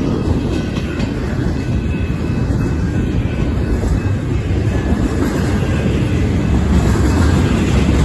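Double-stack intermodal container well cars of a freight train rolling past close by, a steady noise of steel wheels on rail that grows a little louder near the end.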